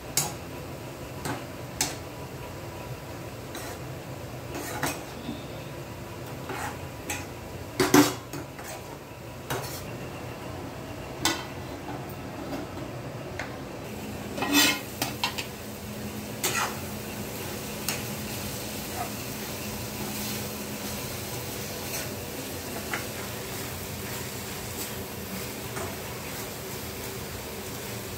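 Metal spatula stirring, scraping and knocking against a steel kadhai full of chopped spring onion greens, with irregular clinks and a few sharp knocks. About halfway through, a steel lid is set on the pan with a clatter. After that a steady low hum and only occasional clinks remain.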